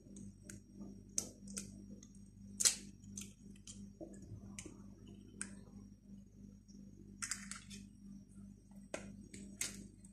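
Eggshells clicking and cracking as eggs are broken and the yolks separated from the whites by hand: a dozen or so sharp, irregular clicks over a faint steady low hum.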